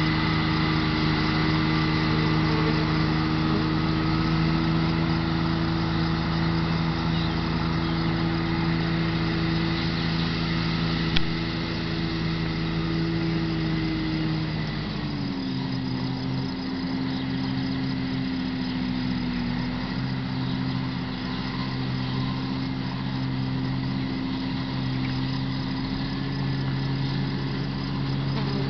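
Massey Ferguson 6130 tractor engine running steadily while mowing hay with a Kuhn GMD 600 disc mower. About halfway through, the engine note drops to a lower pitch and holds there.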